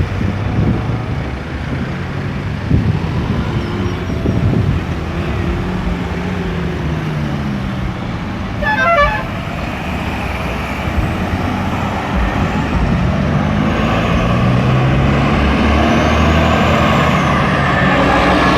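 Road traffic: the engines of cars, trucks and buses running past steadily, with a short car-horn toot about halfway through.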